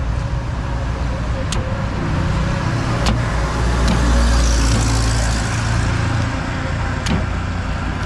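Road traffic with a motor vehicle passing close by, its low rumble swelling about three seconds in and fading by six. Four sharp knocks of a large knife chopping palmyra palm fruit on a wooden block sound over it.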